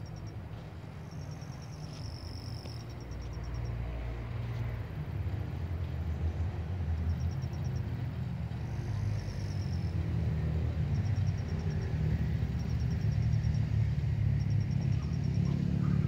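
A low, steady rumble that grows gradually louder, with short, high-pitched pulsed chirps repeating every second or two over it.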